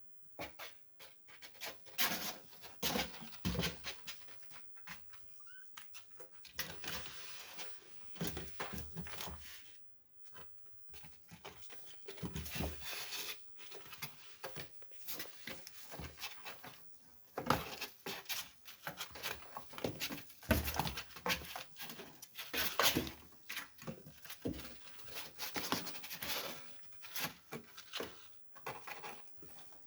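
A kitten moving about close to the microphone: irregular pattering and scuffling noises that come and go, with a brief lull partway through.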